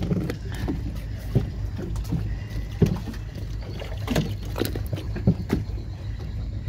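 Small fishing boat's engine running with a steady low drone, with scattered short knocks and clatters on top.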